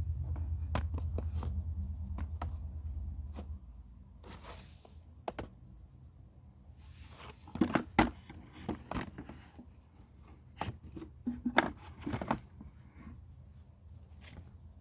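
A low hum for the first three seconds or so, then scattered clicks, knocks and scrapes of hard objects being handled, loudest in two short clusters in the middle and near the end.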